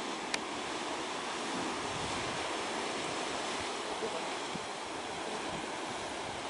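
Steady wash of ocean surf, with some wind on the microphone. A brief click sounds under a second in.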